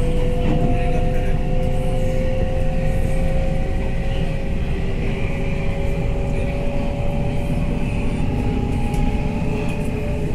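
Delhi Metro train running, heard from inside the coach: a steady rumble of wheels on track with an electric motor whine that rises slowly in pitch as the train gathers speed.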